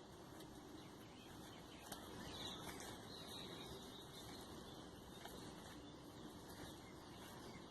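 Quiet forest ambience, close to silence, with faint bird chirps a couple of seconds in.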